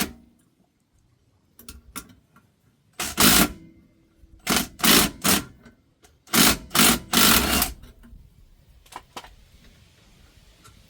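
A hand-held tool working fasteners on a car's rear suspension gives a rapid mechanical rattle in short bursts. The bursts come in three groups between about three and eight seconds in, with a sharp click at the very start.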